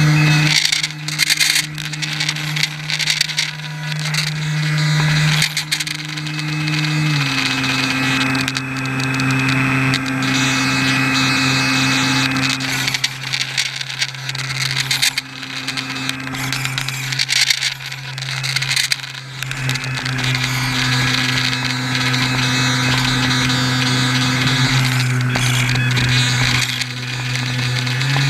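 RC airboat's electric motor and pusher propeller running at steady throttle, a constant droning hum that drops a little in pitch about seven seconds in, with water splash and hiss around it.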